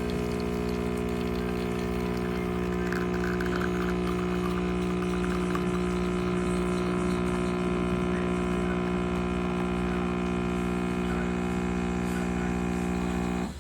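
Espresso machine pump running with a steady hum, with water moving through it; it cuts off abruptly near the end.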